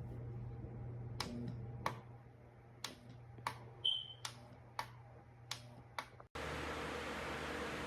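About nine sharp clicks at uneven gaps of roughly half a second over a low steady hum, one with a short high beep. Just past six seconds the sound cuts off and gives way to the steady rushing of a pedestal fan running.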